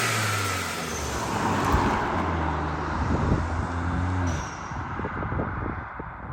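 MK8 Golf R's turbocharged 2.0-litre four-cylinder engine running with a steady note, which fades away near the end.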